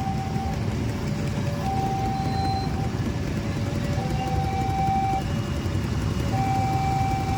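Two-tone electronic warning alarm, alternating between a higher and a lower tone, each held about a second, over a steady low rumble of vehicle engines and traffic.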